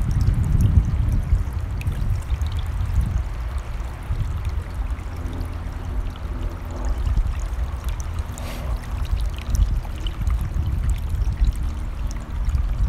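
Running mountain stream, a steady rush of water with a heavy low rumble that rises and falls.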